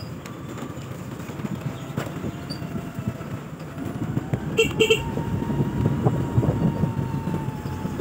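Motorcycle riding along a rough, wet dirt track, with steady engine and tyre rumble. Halfway through comes a quick burst of short beeps from the motorcycle's horn.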